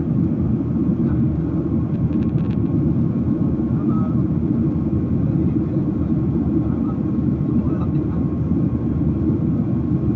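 Jet airliner cabin noise from a window seat: a steady, dense low rumble of the engines and airflow, with a faint steady whine above it.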